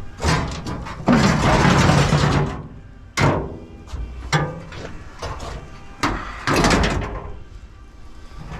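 Scrap metal being shifted and stacked into a truck bed: a long metal scrape a second in, a few sharp clanks in the middle, and another scrape near the end.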